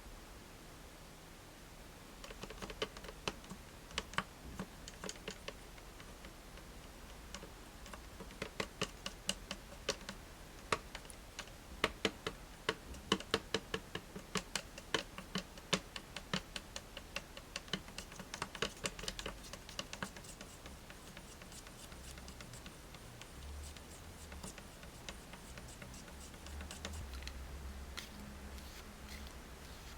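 A run of quick, irregular light clicks and taps, like small hard objects or tools knocking on a tabletop, thickest in the middle and thinning out after about two-thirds of the way through.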